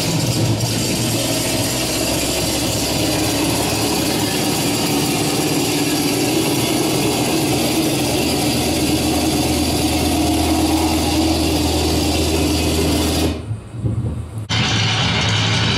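Piston aircraft engine running steadily with a mechanical rattle. It cuts out briefly about thirteen seconds in, then resumes.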